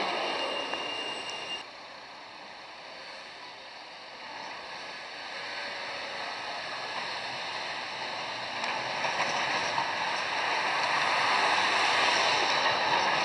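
City tram passing close, with the rumble of wheels on rail, which cuts off suddenly about a second and a half in. Then street traffic noise as another tram approaches and passes, growing steadily louder toward the end.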